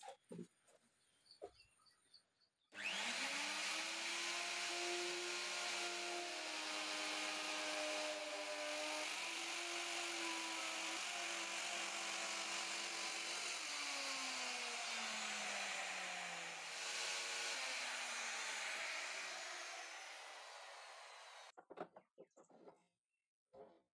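Electric plunge router starting up about three seconds in and running at high speed as it cuts a groove along a straight-edge guide in a wooden panel, its whine shifting and dipping in pitch under load. It is switched off and winds down near the end, followed by a few light scrapes as chips are brushed from the groove.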